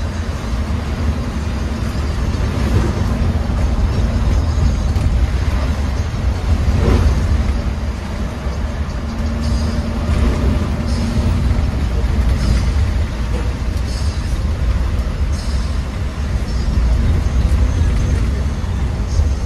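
Cabin noise inside a moving intercity bus on a wet road: a steady deep rumble of engine and tyres, with the hiss of rain and road spray over it.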